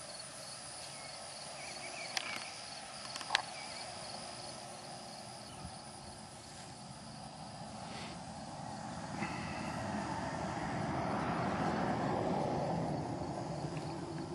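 Open-air rural ambience with faint insect chirring and two sharp clicks about two and three seconds in. From about nine seconds in, a broad noise swells, peaks near twelve seconds and eases off.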